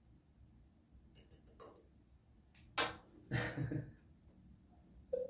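A few light clicks of tweezers against a small glass fish bowl about a second in, followed by short wordless voice sounds around three seconds in.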